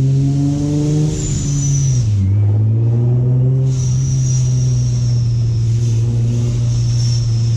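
Supercharged Infiniti G35 V6 (Vortech centrifugal supercharger) accelerating, the engine pitch climbing with a high supercharger whine over it. About two seconds in, the revs drop suddenly for a gear change and the whine cuts out, then the engine pulls again in the next gear with the whine returning and slowly falling in pitch.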